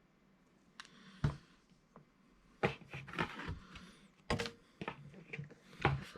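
Comic books being handled and swapped: a run of paper and plastic rustles with several short, sharp knocks as one issue is set down and the next picked up.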